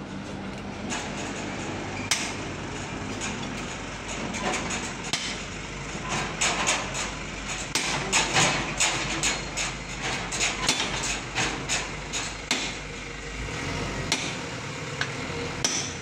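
Many sharp metal knocks and clanks, coming thick and irregular through the middle, over the steady low hum of sawmill machinery.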